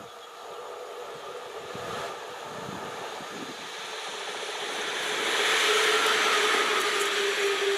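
A Škoda 59E (class 182) electric locomotive running light, approaching and passing close by. Its wheels rumble on the rails under a steady hum from the locomotive, growing louder and peaking as it passes about five to seven seconds in.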